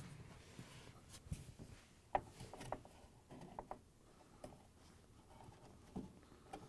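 Faint handling of a plastic refrigerator drip pan as it is set into place by hand: a few scattered light clicks and knocks of plastic, with some rubbing.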